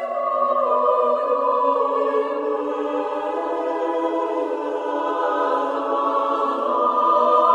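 A choir singing slow, long-held chords, several voice parts sounding together, the harmony shifting gradually a few times.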